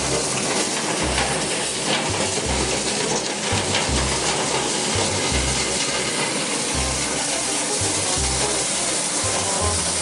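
Steady, loud rushing hiss of air from duct-cleaning equipment, with music carrying a low, pulsing bass beat underneath.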